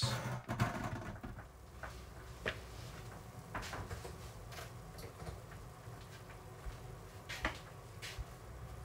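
Freshly baked sourdough focaccia crust 'singing' as it cools: faint, scattered crackles and ticks, a handful spread irregularly over several seconds.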